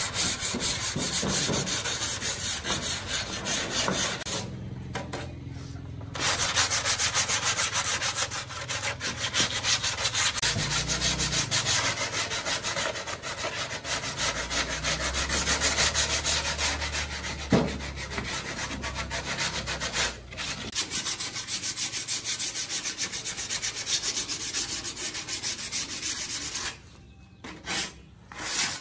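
Steady abrasive rubbing, as of sanding or scrubbing a surface, with short pauses about four seconds in and near the end.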